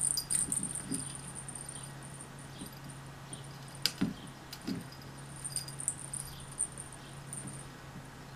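A cat's springy toy being dragged and batted across a hardwood floor by a kitten. Its wire spring jingles and rattles on and off, with a few soft knocks and one sharper click about four seconds in. A steady low hum runs underneath.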